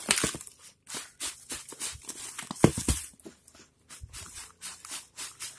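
Cardboard shipping box being opened and its contents pulled out by hand: irregular knocks, taps and rustles of packaging, the loudest knock about two and a half seconds in.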